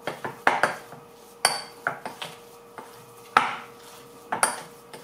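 Metal utensil clinking and scraping against the wires of a balloon whisk and a glass mixing bowl while thick, rather dry muffin batter is worked by hand: a string of irregular sharp clinks with short ringing.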